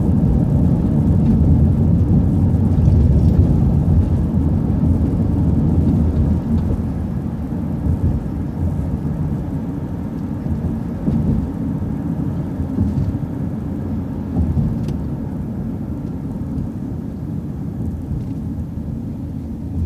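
Transit bus driving along a road, heard inside the cabin: a steady low rumble of engine and road noise that eases off a little after about six seconds.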